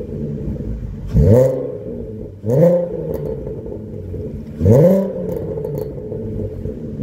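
Volkswagen 3.2 VR6 engine through a custom cat-back exhaust, idling and blipped three times, each rev rising quickly and falling back to idle.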